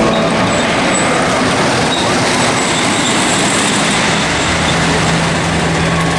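Wooden roller coaster train running along its track: loud, steady mechanical noise, with a steady low hum joining about four and a half seconds in.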